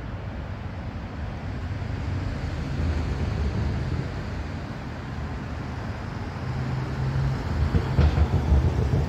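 Freight train of covered vans running along the main line, a steady low rumble that grows louder near the end, with a few sharp clacks in the last second or so.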